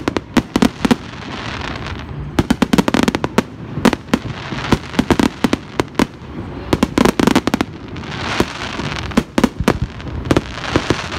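Aerial firework shells bursting overhead. Quick clusters of sharp bangs come every second or two, with a steady hiss between the volleys.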